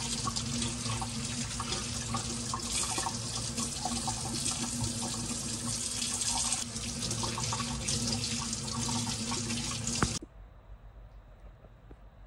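Kitchen tap running into a stainless steel sink, the water splashing over a carrot and cabbage leaves as they are rinsed under it. The water noise is steady and cuts off suddenly about ten seconds in.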